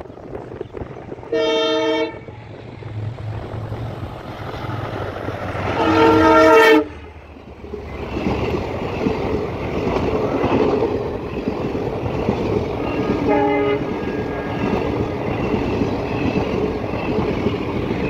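Indian Railways train horn blowing three times: a short blast about a second and a half in, a longer, louder blast around six seconds in, and a shorter, fainter one near thirteen seconds. Under and after the horn, a long passenger train's coaches pass close by with a steady rumble and wheel clatter.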